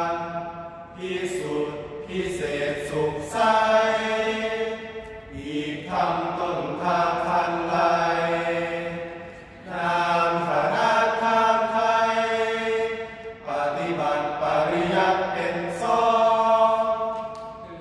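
Male voices chanting Thai Buddhist sarabhanya (สรภัญญะ), a melodic recitation sung in long, held phrases with short breaks between them.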